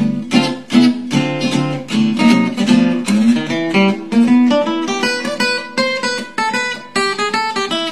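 A 1947 Epiphone Blackstone archtop acoustic guitar, carved spruce top and laminated maple back, played solo with a pick: a steady rhythm of strummed chords mixed with single notes.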